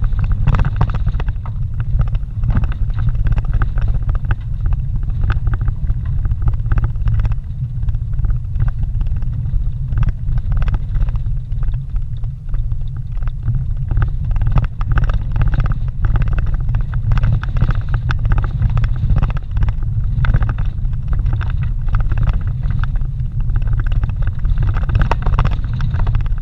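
Vehicle driving over a rough dirt road, heard from inside the cabin: a steady low rumble of engine and tyres, with frequent short knocks and rattles as it goes over bumps.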